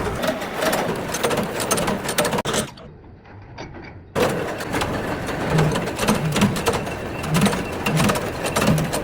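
Bullet-making machinery clattering with rapid clicks. About three seconds in it drops to a quieter hum for a second or so, then the clatter returns with regular low knocks.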